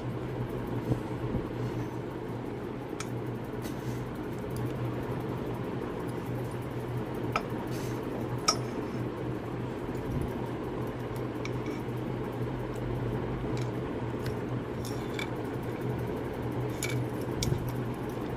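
Open-end spanner working the nuts on a gantry plate's V-wheel bolts: scattered light metallic clicks and clinks, the two sharpest about halfway through, over a steady background hum.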